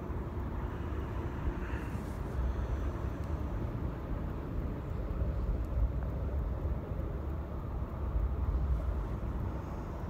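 Steady low rumble of distant vehicles.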